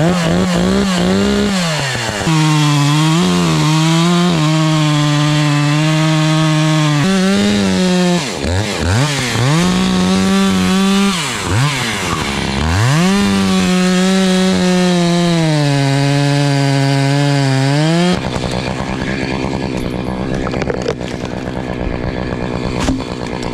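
Two-stroke chainsaw running hard and cutting, its engine note holding high and then dipping and recovering several times as it loads up in the wood. About 18 seconds in the high engine note stops and a quieter, steady rough noise carries on.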